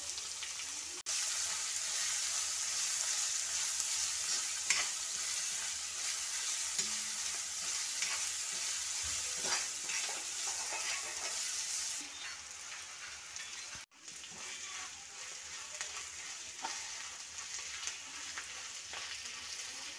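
Sliced shallots, green chillies and curry leaves sizzling steadily in hot oil in a black kadai, sautéing until browned, with a metal spoon stirring and scraping the pan now and then. The sizzle turns a little quieter about twelve seconds in.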